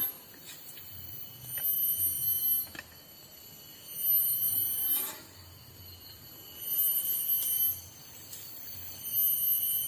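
Forest insects calling: high-pitched buzzing pulses about a second long, four of them, one every two to three seconds.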